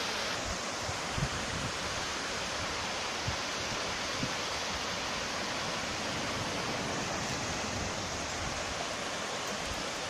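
Small waterfall pouring down a rock face, a steady rushing hiss of falling water, with a few soft thumps.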